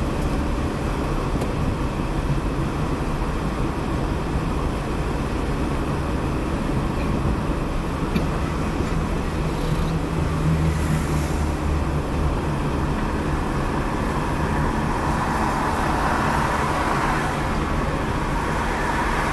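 Steady engine drone and tyre-on-road noise heard from inside a moving car's cabin, growing slightly louder in the last few seconds.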